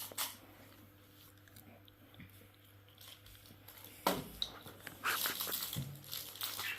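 Crunchy biting and chewing into a crisp chocolate or candy snack. A couple of clicks come at the start, then the crunching starts about four seconds in.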